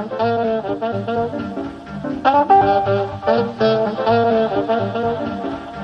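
Electro swing music: a jazzy lead melody over a pulsing bass beat, with a short lull about two seconds in.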